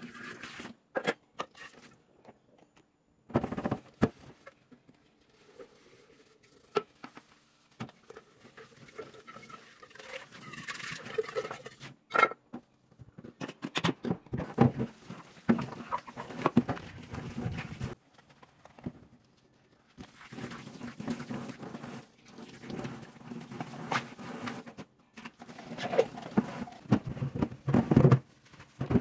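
Washing up by hand at a stainless steel kitchen sink: a sponge scrubbing and water from the faucet splashing, with sharp knocks of dishes and metal against the sink. It comes in irregular stretches broken by short pauses.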